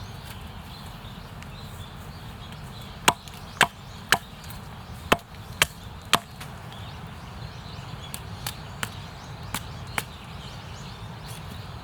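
Wood being chopped with sharp blows: six loud strikes about half a second apart, starting about three seconds in, then four lighter strikes.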